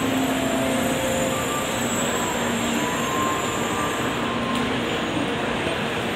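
Steady din of a Shinkansen platform: a stationary Shinkansen train standing with its doors open, its equipment running in an even noise, under the bustle of passengers walking past and boarding.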